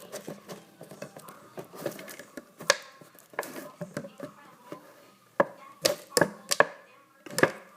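A plastic soda bottle crackling and cracking as a large piece is worked off it: irregular sharp snaps among crinkling, with the loudest snaps about three seconds in and near the end.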